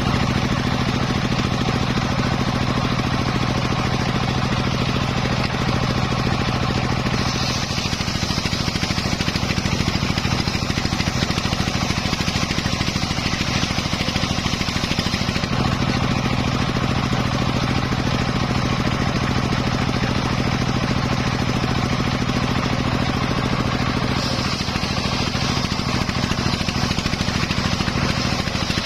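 A homemade engine-driven circular saw rig running steadily while sawing teak. The sound switches back and forth between two steady states about every eight seconds: a stronger low engine note, then a brighter, hissier sound.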